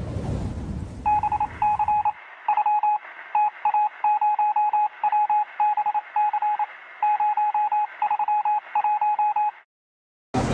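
Morse-code-style beeping: a single tone keyed on and off in irregular short and long pulses for about eight seconds, then cut off abruptly. A low rumbling noise fades out under its first second.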